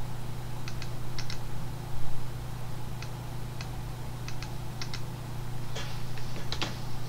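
Computer keyboard keys tapped in scattered single presses and quick pairs while code is entered, the taps coming thicker near the end, over a steady low hum.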